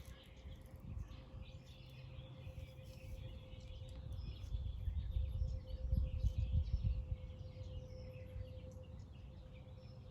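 Small birds chirping over a low rumble that swells and fades around the middle, with a faint steady hum underneath.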